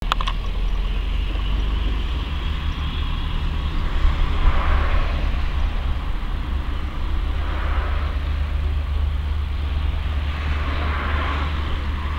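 Cessna 208 Caravan's PT6A turboprop during engine start: a steady low rumble with a hiss that swells and fades three times.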